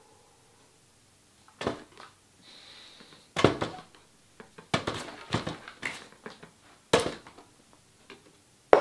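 A scattering of short knocks and thuds, about a dozen, some in quick clusters in the middle; the loudest fall about three and a half seconds in, about seven seconds in and at the very end.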